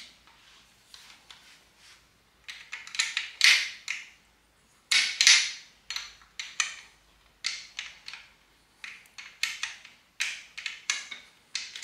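Adjustable wrench working the adjuster nut on a seized, corroded motorcycle clutch cable: a string of short metal scrapes and clicks, about one a second, beginning a couple of seconds in.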